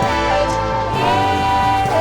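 Background music with a steady beat and held, gliding melody notes.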